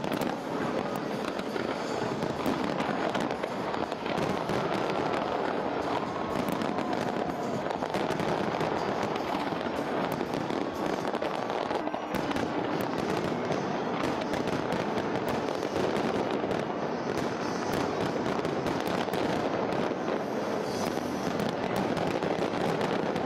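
Large fireworks display: a continuous, dense barrage of crackling and rapid bangs overlapping without a break.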